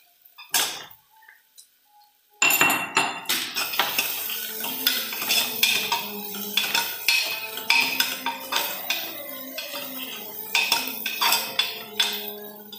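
A metal spoon clinking and scraping in a cooking pan as onions are stirred. After a few scattered clinks and a quiet moment, the stirring turns loud and busy about two seconds in, with rapid strikes against the pan.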